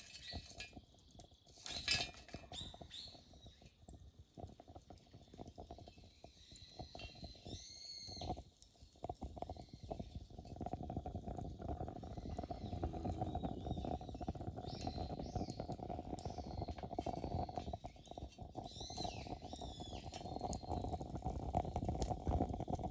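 Wood-fired portable rocket stove burning hard with a strong updraft: a low rumbling roar with a steady hum running through it, growing louder from about ten seconds in. A few short high chirps sound over it.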